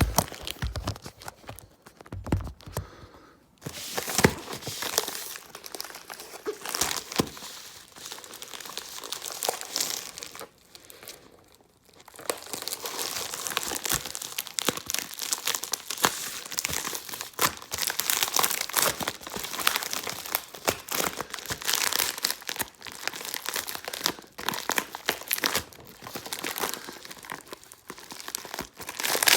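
Shipping packaging crinkled and torn by hand as a package is opened, in irregular crackling rustles with brief pauses about three seconds in and again around eleven seconds in.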